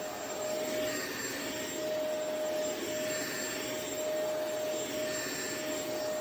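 Hoover Power Scrub Elite carpet cleaner running while shampooing a carpet: a steady motor whine over the rush of suction, one constant hum tone throughout.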